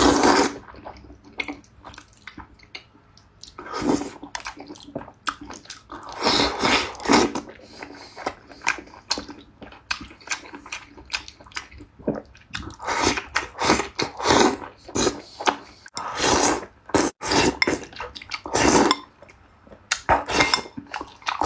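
A person slurping spicy noodles and chewing, in repeated wet bursts of sucking and smacking with short pauses between.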